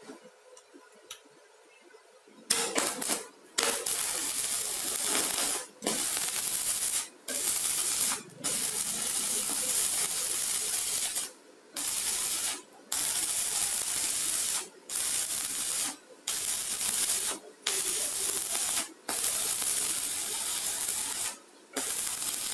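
Stick-welding arc from a mini 250 inverter welder burning a 3.2 mm electrode: a loud crackling hiss that starts about two and a half seconds in, broken by short gaps every second or two.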